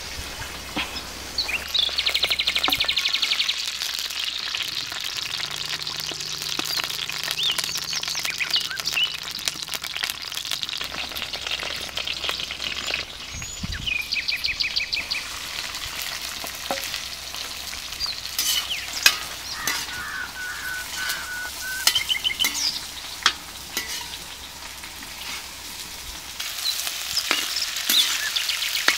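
Oil and sliced onions with chillies sizzling and frying in a large iron kadai over a wood fire, with the clicks and scrapes of a metal slotted spoon stirring them. Birds chirp and trill in the background.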